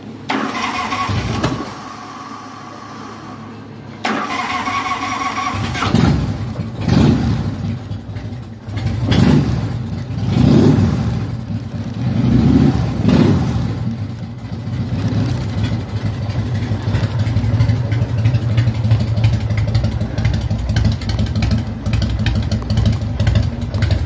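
Harley-Davidson V-twin motorcycle started through baffled exhaust pipes: a first short crank of the starter that doesn't catch, a second crank about four seconds in that fires the engine, a few blips of the throttle, then a steady idle.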